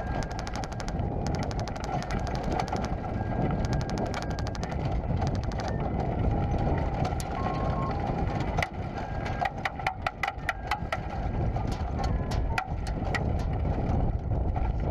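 An off-road vehicle driving on a dirt track: a steady low engine and tyre rumble, with runs of rapid rattling clicks over it, dense in the first few seconds and a few a second near the end.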